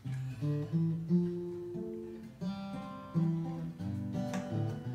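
Two acoustic guitars playing an instrumental intro, chords ringing and changing every half second or so, with a sharp strum near the end.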